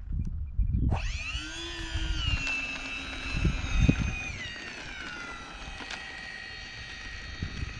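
Twin electric ducted fans of an E-flite A-10 model jet spooling up sharply about a second in to a high whine, easing down in pitch a little after four seconds and then holding steady. Wind rumbles on the microphone, with a couple of knocks partway through.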